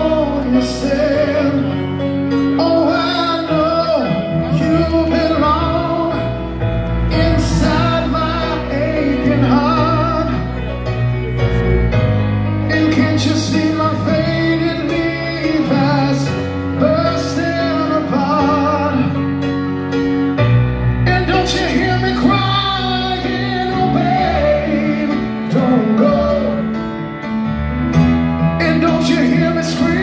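Live rock band playing a slow ballad, with a male lead vocal holding long notes over sustained chords and steady bass notes.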